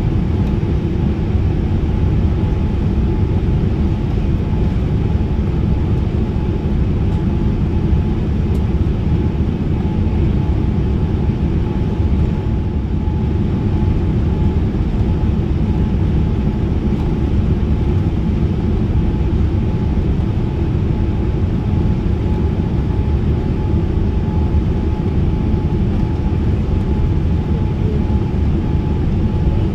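Steady cabin noise inside a Boeing 787-10 descending on approach: a low engine and airflow rush along the fuselage, with a faint steady whine over it.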